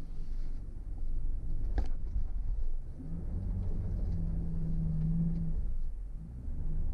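Mercedes GLC 300d SUV driving, a low rumble of engine and road noise with an engine hum that rises and holds for a couple of seconds in the middle. A single sharp knock about two seconds in.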